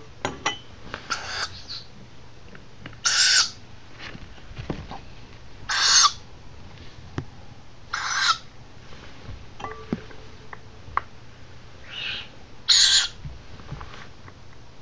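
Owlet giving short, raspy, hissing calls, about six in all, one every two to three seconds: the wheezy food-begging call of a young owl.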